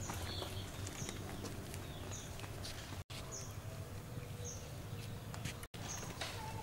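Small birds chirping: short, high chirps that fall in pitch, repeating roughly once a second over a low outdoor background rumble.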